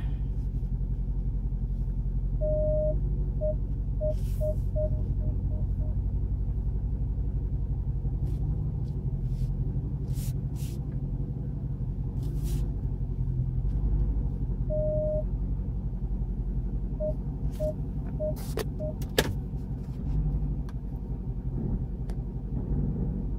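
Dodge Charger Hellcat's supercharged 6.2-litre V8 idling steadily while the warm car creeps in reverse. Twice the rear park-assist sensor sounds a longer beep, then a run of short beeps.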